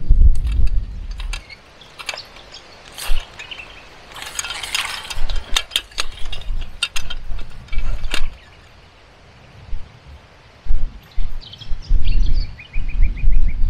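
Steel coil spring of an electric-fence spring gate, stretched out of shape, clinking and rattling as it is handled. Its coils make a run of sharp metallic clicks for the first eight seconds or so, busiest around the middle. After that there is a low rumble.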